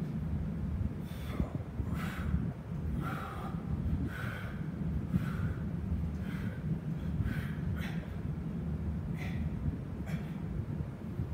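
A man breathing hard in short, sharp exhalations, about one a second, ten or so in all, from the effort of a set of dips on parallel bars. A steady low hum runs underneath.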